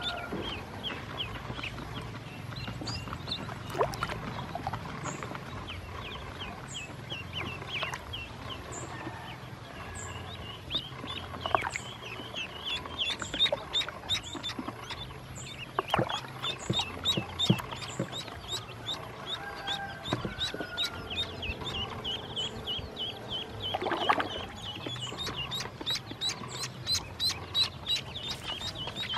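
A brood of ducklings peeping: a continuous string of short, high, falling peeps from many birds at once, coming thicker near the end, with an occasional splash of water.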